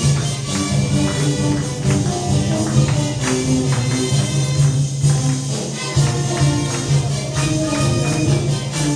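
Marinera music playing loudly: sustained melody notes over a regular beat of sharp percussive strikes.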